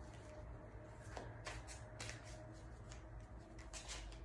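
A tarot deck shuffled by hand in overhand fashion: faint flicks and taps of the cards at irregular moments, over a low steady hum.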